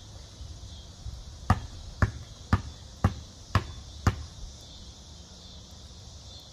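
A basketball dribbled six times on a concrete driveway, at an even pace of about two bounces a second, in a free-throw shooter's pre-shot routine.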